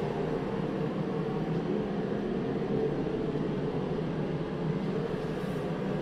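Propane forced-air heater running: a steady, even drone of its fan and burner.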